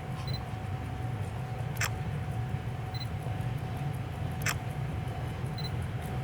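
A freight train of container wagons rolling slowly past with a steady low rumble, a sharp click coming about every two and a half seconds.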